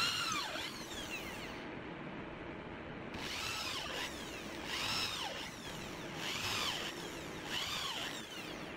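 Cordless drill driving screws into wood, in about five short bursts; each time the motor's whine rises in pitch, then falls away as the trigger is let off.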